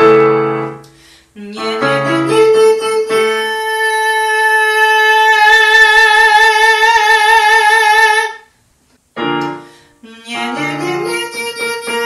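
Yamaha digital piano plays a chord and a short rising phrase, then a man holds one high sung note in mixed voice. The note is steady at first and gains an even vibrato about halfway, then stops. Another piano chord and phrase follow, and the voice takes up the same high note again near the end: a vocal exercise for strengthening the top notes.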